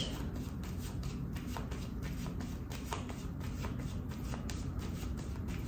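A 32-card deck of playing cards being shuffled by hand, a soft, steady run of small card clicks as the cards slip over one another.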